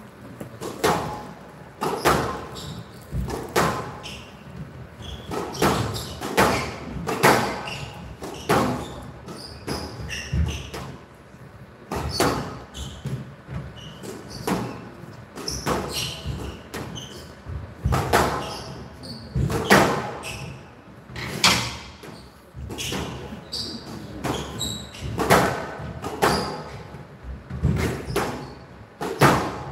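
A squash ball being struck by rackets and hitting the walls of a glass court during a rally, with a sharp knock about every second, each echoing.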